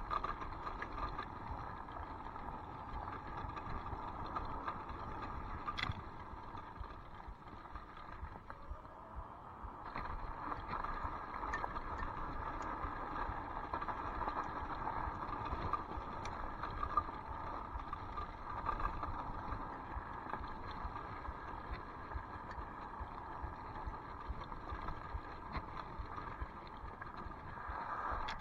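Electric scooter ridden over a dirt trail: a steady motor whine over the rumble of tyres on dirt, with scattered small rattles and clicks from the frame. The whine grows louder about ten seconds in.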